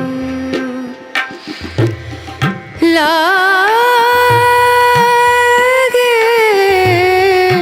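Background song in Hindi: a singer holds one long, wavering note over a repeating drum beat, with a sung lyric line near the end.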